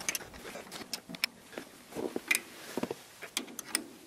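Open-end wrench clicking and ticking against a starter-motor mounting bolt as it is turned and tightened by hand: a string of irregular sharp metallic clicks, a few per second.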